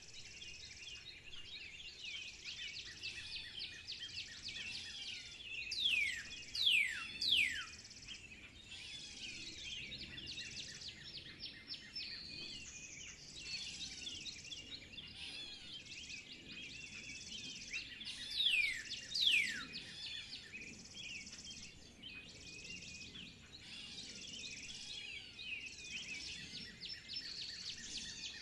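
A dense chorus of many birds chirping and singing at once. Loud whistles that slide sharply down in pitch stand out: three in quick succession about six seconds in, and two more around nineteen seconds.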